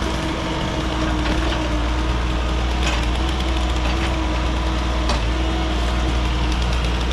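Engine of compact earthmoving equipment running steadily with a deep hum, with a couple of sharp metallic knocks about three and five seconds in.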